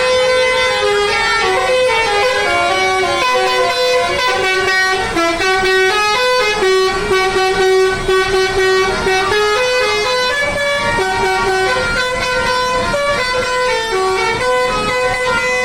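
Indonesian 'telolet' musical bus horn playing a continuous tune, its notes stepping up and down with two horn tones often sounding together.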